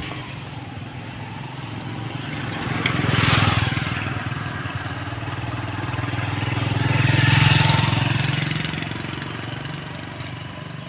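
Two motor vehicles passing one after the other, each engine growing louder and then fading away, the second about four seconds after the first.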